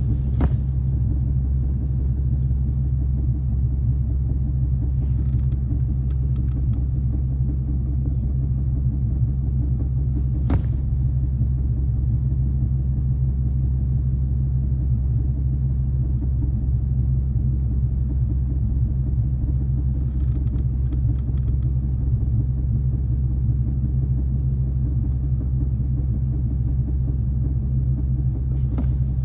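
Car engine freshly fitted with a ProCharger supercharger running at a steady speed, making the whirring, grinding noise that the owner is asking about. A few sharp clicks stand out over the steady rumble.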